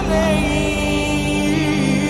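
Devotional chanting as background music: a solo voice holds long, ornamented notes over a steady drone.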